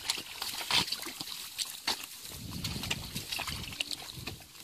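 Hands and bare feet splashing and squelching in shallow muddy water, a run of short irregular splashes and sucking sounds as the mud is searched for fish.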